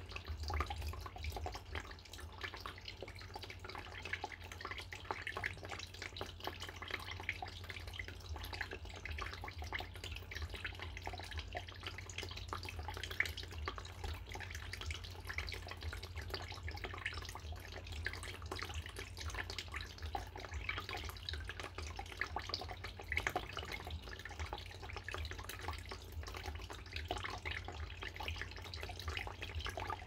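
Small indoor tabletop water fountain, its little waterfall trickling and splashing steadily into the basin, with fine drips throughout.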